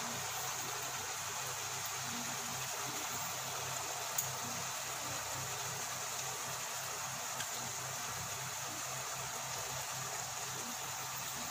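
Chicken pieces cooking in a nonstick pan on the stove: a steady hiss with a low hum underneath, and a couple of faint clicks.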